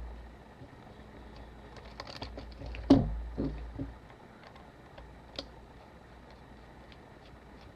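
Light clicks and taps of small tools and metal camera parts being handled during the disassembly of a Canon AE-1, with a louder knock about three seconds in followed by a few softer knocks.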